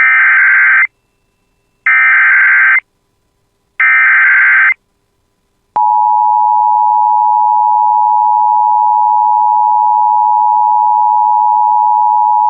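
Emergency Alert System SAME header: three one-second bursts of digital data tones about two seconds apart. About six seconds in, the steady attention alarm tone of a NOAA Weather Radio warning starts.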